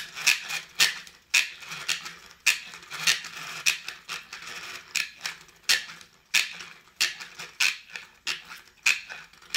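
Plastic spin-art toy being spun by hand, its mechanism giving a sharp click somewhat under twice a second with a light rattle between clicks. It is noisy.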